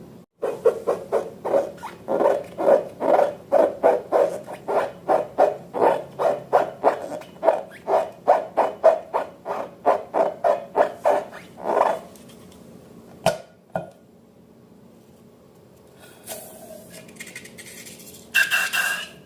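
Slime squelching in a steady rhythm, about three squelches a second, stopping about two-thirds of the way through. Then a single sharp click, and near the end a short, higher squeak.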